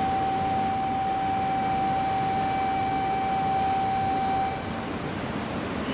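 A single steady electronic tone, like a platform departure buzzer, holding for about five seconds and then cutting off, over steady station background noise.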